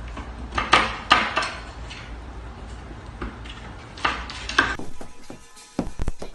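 Several sharp clattering knocks of hard objects, in two pairs, followed by lighter scattered clicks.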